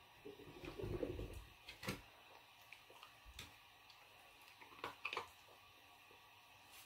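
Faint sounds of a dog nosing a hard plastic treat ball on a hardwood floor: a low rumble for about the first second, then a few scattered light clicks and taps as the dog steps about on the wood.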